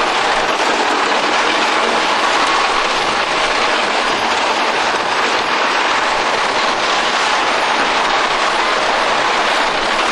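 Wooden roller coaster train running at speed along its track, heard from on board: a steady, loud rumble and clatter of the wheels.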